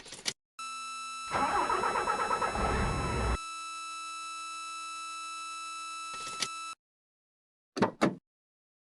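Mercedes-Benz LS1634 truck's diesel engine being cranked by the starter for about two seconds with a rhythmic pulsing, then stopping without the engine running. A steady electrical whine runs under it and goes on a few seconds longer, with sharp clicks near the start and a couple near the end.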